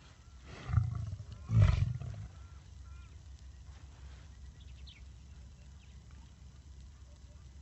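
Male lion sneezing twice in quick succession: a short, deep burst about a second in, then a louder one that fades within about half a second.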